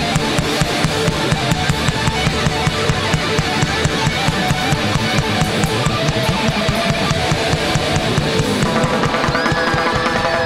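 Live rock/techno band playing loud: a fast, steady drum-kit beat with electric guitar. Near the end a high, wavering lead note comes in on top.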